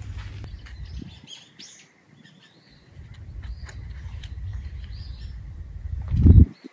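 Small birds chirping over a low rumble that drops out for about a second and a half, then a loud low thump near the end.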